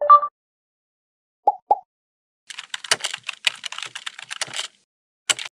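Computer keyboard typing sound effect: a rapid run of key clicks lasting about two seconds, then a single key click near the end. It opens with a short two-tone blip and two quick clicks.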